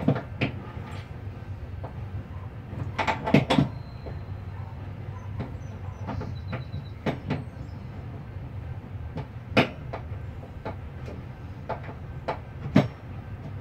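Scattered metal clicks and knocks from a mower deck's center spindle shaft and pulley parts being handled and fitted by hand, a small cluster of them about three seconds in and single knocks after that, over a steady low hum.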